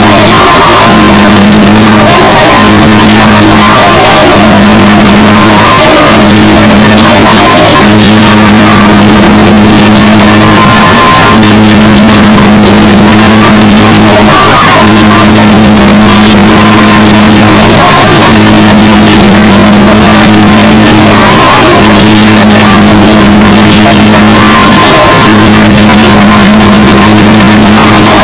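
Very loud harsh noise music: a dense wall of distorted noise over a low held note that repeats in phrases of a second or two, broken by short gaps.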